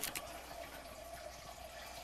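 Faint steady hiss, with two light clicks right at the start.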